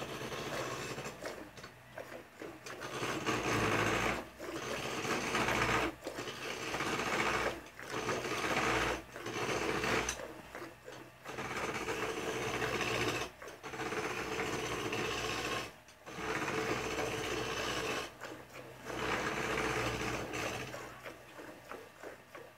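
A cow being milked by hand: rapid alternating streams of milk squirting into a part-full metal pail, in spells of a few seconds broken by short pauses.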